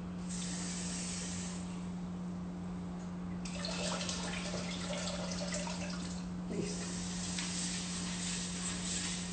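Cooking oil being poured into a Thermomix mixing bowl, a liquid trickle that comes and goes in stretches, over a steady low hum.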